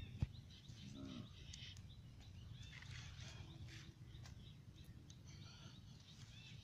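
Faint outdoor ambience: small birds chirping now and then over a low steady rumble, with a sharp click just after the start and a few faint snaps.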